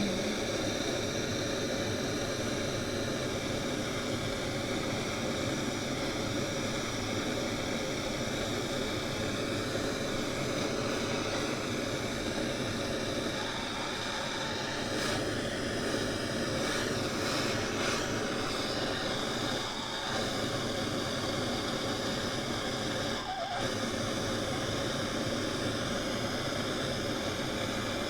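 Propane torch flame hissing steadily while heating a copper pipe for soldering.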